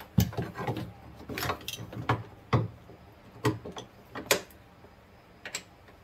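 Irregular clicks and clunks of metal seat belt hardware being handled and fitted by hand against the car body, about a dozen in the first four and a half seconds, then only a couple of faint clicks near the end.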